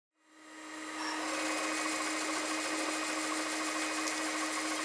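Engraving machine running steadily on a piece of wood, a steady hum under a fine rapid mechanical chatter, fading in over the first second.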